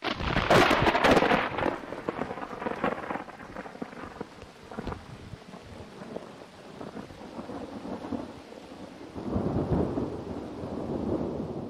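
Thunderstorm sound effect: thunder rumbles loudly at the start and again near the end, over a steady hiss of rain.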